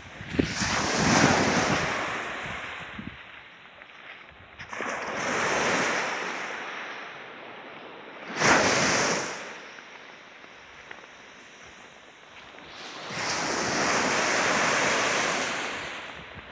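Small waves breaking and washing up a sandy beach, the surf swelling and fading four times. Wind buffets the microphone near the start.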